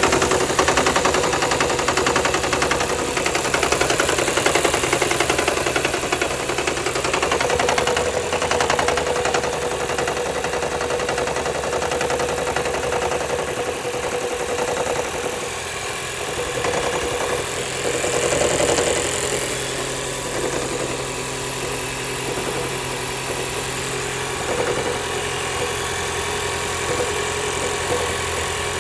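Toyota Camry engine running steadily, with an abnormal noise whose cause the owner does not know. A tone in the middle of the range wavers throughout, and a brief high-pitched sound comes about two-thirds of the way through.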